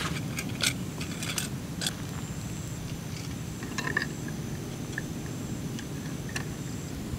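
Scattered light clicks and knocks of a battery camping lantern being handled on a camp table and picked up, over a steady low background hum.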